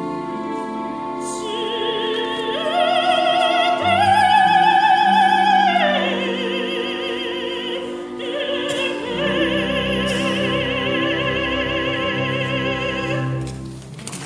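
Operatic soprano singing with full orchestra, the closing phrase of an aria. Her voice climbs to a loud high note held with wide vibrato, then settles onto a long final note over sustained orchestral chords, and the music stops near the end.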